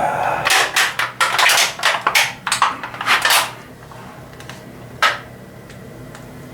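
Hard clattering and scraping of metal objects being handled, like parts or tools knocked about in a pan, in a quick run of knocks for about three and a half seconds, then one more knock about five seconds in.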